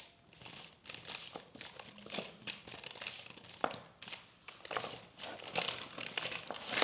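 Irregular crinkling and rustling, as of something being handled and crumpled, in quick uneven crackles.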